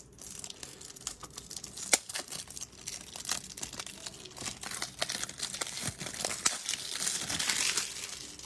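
Plastic wrappers of trading card packs crinkling and tearing as the packs are handled and opened, with many small clicks and one sharp click about two seconds in. The crinkling grows denser near the end.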